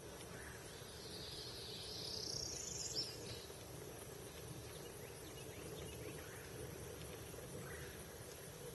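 Outdoor ambience: a steady low rumble and hum, with a thin high sound rising in pitch over the first three seconds that ends in a sharp click, and a few faint short chirps later on.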